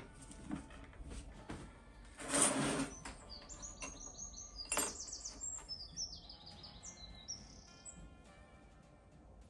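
A small songbird chirping, a run of quick high chirps a few seconds in, over faint background music. It is preceded by a short, loud hiss lasting about half a second, and a sharp click comes in the middle.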